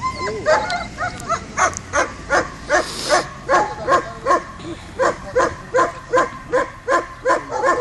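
Dog barking in a fast, even rhythm, some twenty barks at about two and a half a second. The dog is held back on its collar during bite-work training, barking at the decoy facing it.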